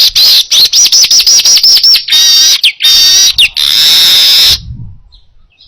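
Manyar (weaver bird) singing loudly: a fast run of repeated chirping notes, about eight a second, then two harsh buzzy phrases and a long hissing buzz that stops near the end.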